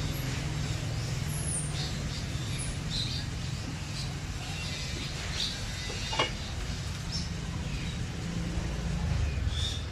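Steady low rumble of road traffic, with a few short, high bird chirps scattered through it.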